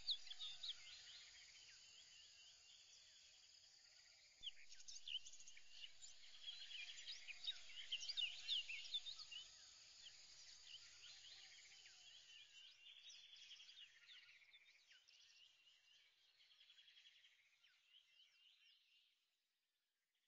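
Faint birdsong and insect trilling: many short chirps mixed with a few rapid trills, fading out near the end.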